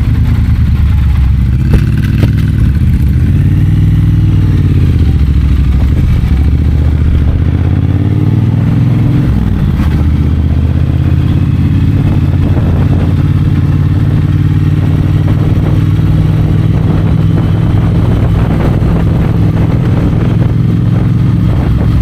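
Triumph Bobber's 1200 cc parallel-twin engine running under way on a ride, its pitch rising and falling repeatedly through roughly the first ten seconds, then holding steady.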